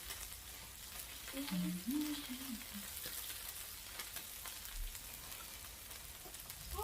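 Food sizzling and crackling on a tabletop gourmet grill plate, with a steady fine crackle. A short voice sound comes about a second and a half in.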